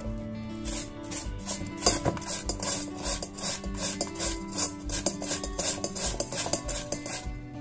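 Vegetable being grated on a plastic box grater into a steel bowl: a repeated rasping, about three strokes a second, over background music.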